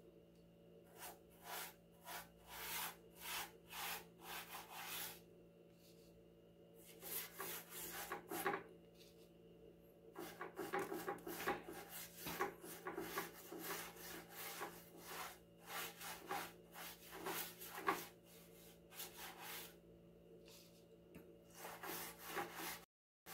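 Hand scrubbing the rusty burner plate of an electric hot plate with a lemon and baking soda paste, in runs of quick rubbing strokes with short pauses between them.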